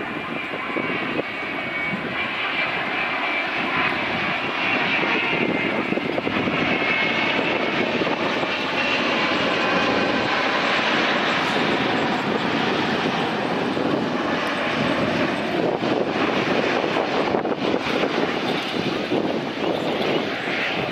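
Twin turbofan engines of a Boeing 787-8 airliner on final approach with gear down, a steady jet roar with a faint high whine, growing louder over the first few seconds as the plane passes close by.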